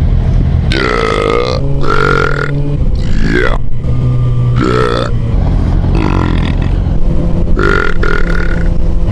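A man belching repeatedly: about six loud burps in a row, each lasting under a second, over a steady low hum.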